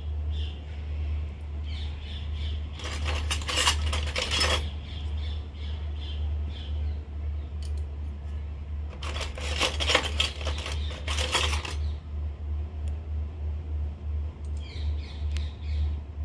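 Miniature stainless-steel toy kitchen utensils clinking and rattling against each other as they are handled and set down, in two spells of a couple of seconds each, about three seconds in and again near the middle, with a few lighter clicks later. A steady low hum runs underneath.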